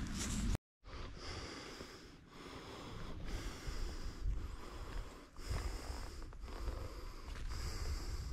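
A person breathing hard through the nose, a hissing breath roughly every two seconds, over a low rumble of wind on the microphone.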